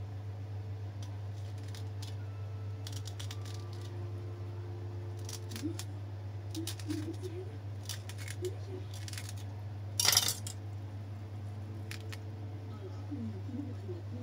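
A knife cutting a mango into small cubes: scattered light clicks and taps of the blade, with a brief louder scrape about ten seconds in, over a steady low hum.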